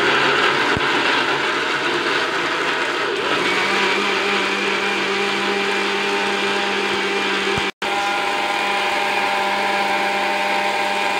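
Crompton mixer grinder running at speed, its steel jar grinding chopped tomato, onion, ginger, garlic and green chilli with a little water into a wet masala paste. The churning settles into a steadier whine after a few seconds, and the sound cuts out for a moment about three quarters of the way through.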